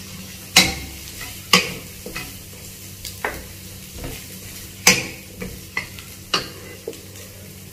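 Wooden spatula scraping and knocking against a non-stick wok while stir-frying asparagus and baby carrots in butter and garlic, with a faint sizzle. About ten irregular knocks, the loudest about half a second in, at about one and a half seconds, near five seconds and past six seconds.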